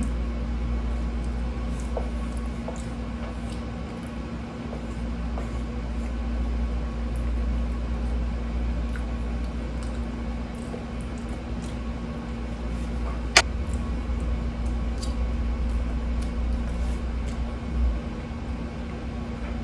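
Faint chewing and mouth sounds of someone eating, over a steady low hum. There is one sharp click about 13 seconds in.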